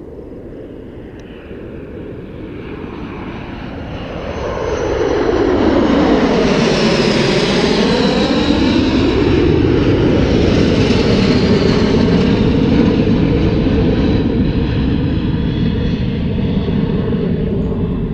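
A pair of jet aircraft flying past in formation. The engine noise swells over the first five seconds, stays loud through the middle with a sweeping, shifting tone as they pass, and eases only slightly near the end.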